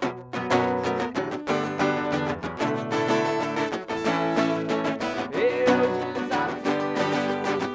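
A band playing live, with strummed guitar over regular drum hits; a held, bending note sounds about five and a half seconds in.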